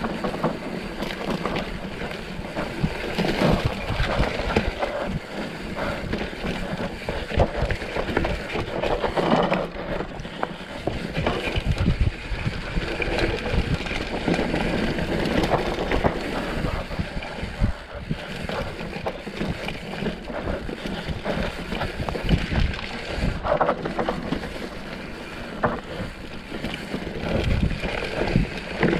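Mountain bike ridden fast over a rough trail: wind buffeting the microphone over tyre rumble on dirt, with frequent rattles and knocks from the bike.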